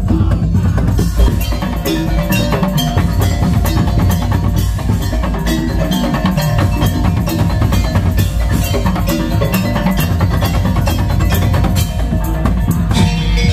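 Madurese tong-tong ensemble playing: a fast, steady rhythm of wooden slit-drum and drum beats, with ringing mallet-struck metal bars over a steady low bass.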